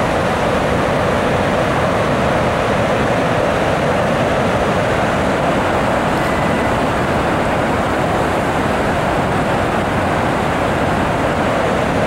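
Flood release pouring through the open gates of a concrete dam's spillway and crashing into the river below: a loud, steady rush of water.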